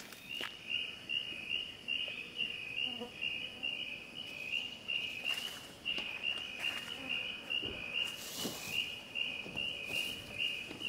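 A forest insect chirping steadily, a continuous run of evenly spaced high pulses, with scattered knocks and rustles of luggage being handled.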